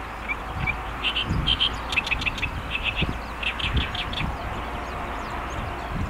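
Great reed warbler singing: a run of short syllables repeated in quick clusters, starting about a second in and lasting about three seconds.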